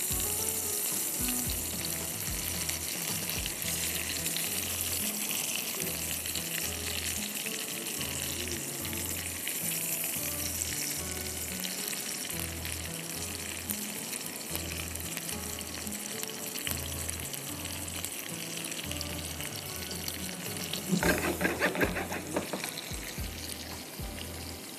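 Chopped onion and crushed garlic frying in butter in a pan, a steady sizzle, with background music's slow low beat underneath. About 21 seconds in comes a short run of sharper clicks and scrapes.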